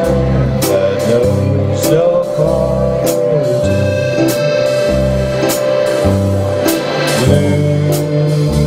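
Live band playing a slow country ballad: steady held chords over a bass line that moves about every second, with light cymbal strikes roughly once a second.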